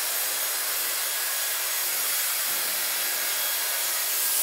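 Dyson Airwrap hair styler blowing air steadily while drying wet hair through a brush attachment: an even rushing hiss with a faint high motor whine.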